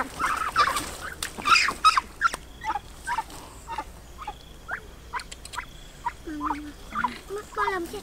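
A Muscovy duck giving short, repeated calls while being grabbed by hand, louder and closer together in the first two seconds, then sparser.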